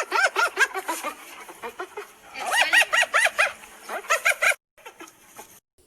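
Spotted hyena laughing: a rapid run of high, rising-and-falling yelping calls, several a second, loudest about halfway through, dying to a few faint calls near the end.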